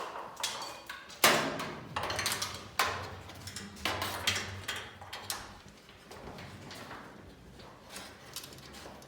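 Irregular metallic clicks and knocks from new steel garage-door lift cables and their hardware being handled and fitted, the loudest knock about a second in.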